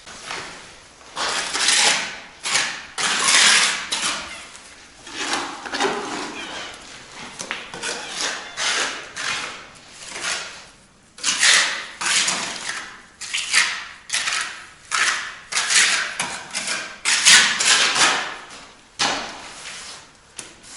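Bricklaying work: a run of short, uneven scrapes, like a trowel spreading mortar over bricks as they are laid and levelled.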